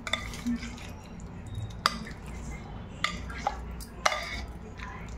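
A spoon stirring marinated soya chunks in a plastic tub, with a few sharp clicks and short scrapes as it knocks against the sides and bottom.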